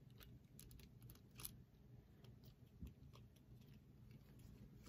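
Near silence with a few faint, scattered clicks of a plastic smartphone tripod's phone clamp being handled and screwed onto its mount.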